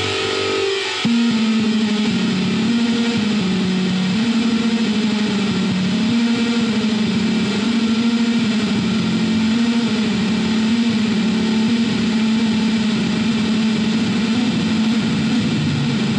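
Music: a low line alternating between two notes over a steady noisy wash. It takes over with a jump in level about a second in, after a guitar passage.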